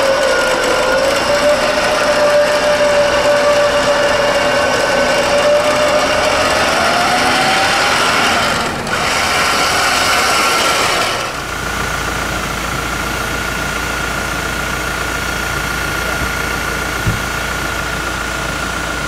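Off-road vehicle's engine running with a steady whine that rises in pitch about eight seconds in. About eleven seconds in the sound changes to a steadier, higher whine over a low rumble.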